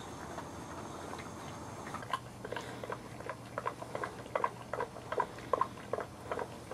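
Boxer puppies whimpering: a string of short, high squeaks, two or three a second, beginning about two seconds in.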